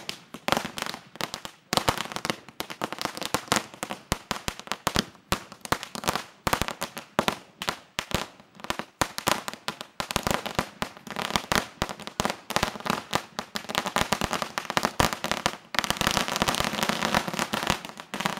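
Firecrackers going off in rapid, irregular sharp bangs, thickening from about halfway into near-continuous crackling that is densest near the end.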